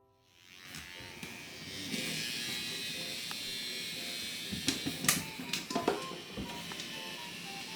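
Small motor of a battery-powered moving bug toy buzzing steadily, with a cluster of sharp clicks and taps about five to six seconds in.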